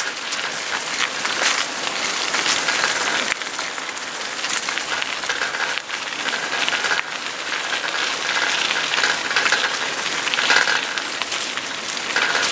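Steady hiss and crunch of bicycle tyres rolling along a gravel trail, heard from the moving bike.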